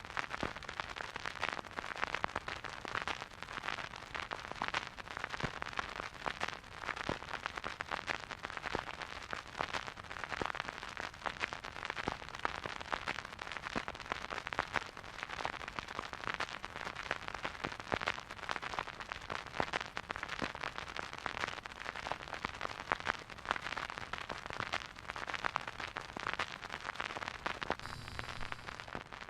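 Record player stylus riding the silent groove of an old vinyl record: dense, irregular crackles and pops over a soft steady hiss, the surface noise of a dusty, scratchy record.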